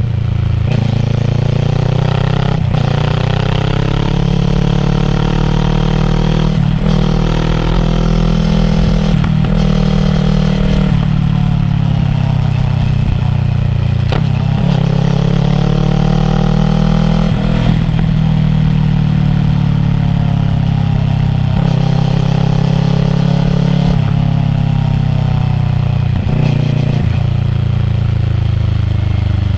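Kawasaki ER-6f's parallel-twin engine through a Yoshimura full-system exhaust, ridden through the gears: the engine note climbs, drops back at each gear change, and climbs again, over and over.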